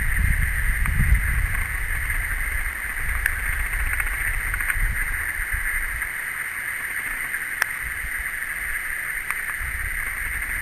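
Wind rumbling on the microphone, heavier in the first half and easing about six seconds in, over a steady high-pitched hiss.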